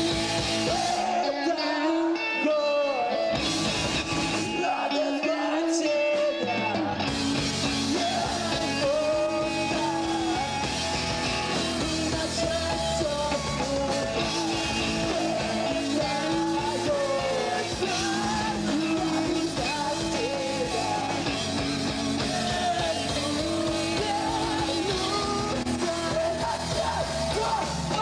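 Live emo band playing a song: electric guitars alone at first, then bass and drums join about seven seconds in, with singing over the full band.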